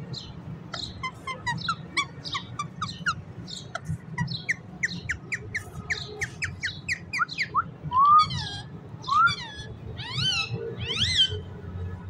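Rose-ringed parakeet calling: a quick run of short, sharp chirps, about three a second, then from about eight seconds in a few louder, longer squawks that rise and fall in pitch.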